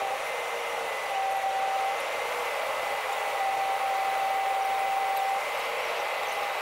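Airliner cabin noise played back at ten times speed, heard as a steady hiss with no low rumble. A thin steady whine runs through it, and a second, lower whine comes and goes, held longest from about three to five seconds in.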